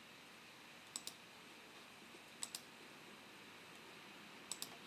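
Three quiet double clicks of a computer mouse, about a second and a half apart, over near silence.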